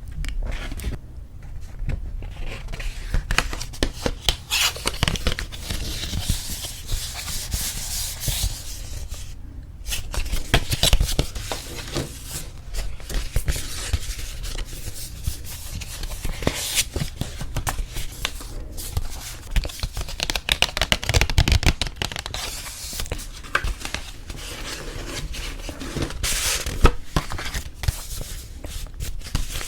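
Paper wedding invitations and their envelopes handled close to the microphone: irregular rubbing, rustling and sliding of stiff paper with small crackles and taps.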